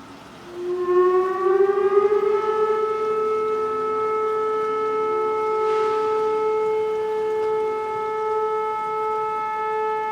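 Outdoor tornado warning siren starting up about half a second in, its pitch rising over a couple of seconds and then holding one steady tone. It is sounding as a test of the warning system.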